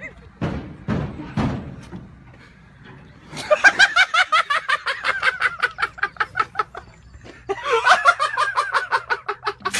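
A couple of short thuds, then a person laughing hard in rapid, rhythmic 'ha-ha-ha' bursts from about three seconds in, pausing briefly and starting again near the end.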